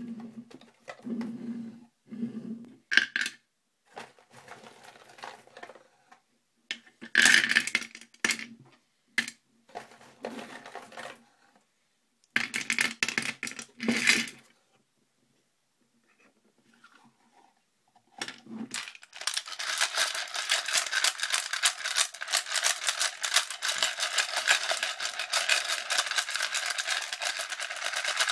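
Loose brass .22LR cartridges clicking and rattling against each other and the clear plastic tray of a Butler Creek 10/22 magazine loader as it is handled, in irregular bursts. About two-thirds of the way in it turns to a dense, continuous rattle of rapid clicks as the loader is shaken to settle the rounds into its feed channel.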